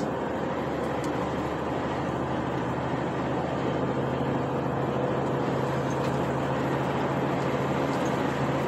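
Steady drone of a truck's engine and road noise heard from inside the cab while driving on the highway, with a low engine hum that grows stronger about halfway through.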